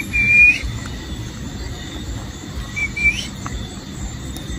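High, thin whistled call: a steady note about half a second long at the start, then a shorter one about three seconds in that rises at its end, over a low steady background noise.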